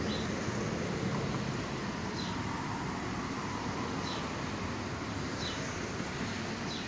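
Steady background noise with a faint short high chirp repeating about every one and a half to two seconds.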